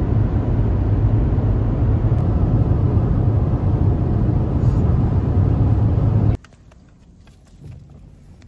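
Car cabin noise at highway speed: a steady low rumble with tyre and road hiss. It cuts off suddenly about six seconds in, leaving only faint, quiet sounds.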